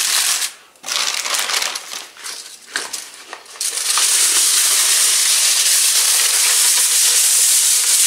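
Thin aluminium foil crinkling and crackling in irregular bursts as it is pressed and folded by hand. From about four seconds in this gives way to an even, steady high hiss.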